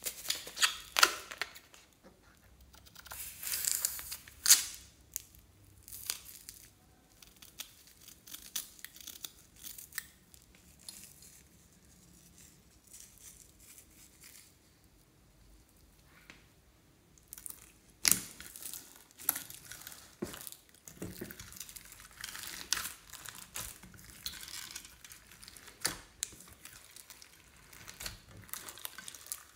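Clear slime full of plastic beads and glitter being squeezed and kneaded by hand in a glass dish, with sticky crackling and small sharp clicks. The sounds come in bursts: busy in the first few seconds, quieter in the middle, and busy again from about two-thirds of the way through.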